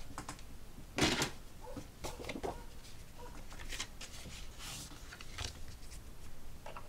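Cardstock being lifted and folded in half along a score line by hand: a handful of short paper rustles and scrapes, the loudest about a second in.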